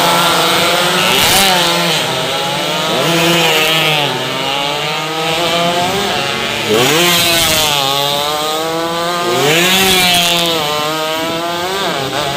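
High-revving racing underbone motorcycle engines going through a corner, their pitch repeatedly dropping and then climbing back up as the bikes come off and back onto the throttle.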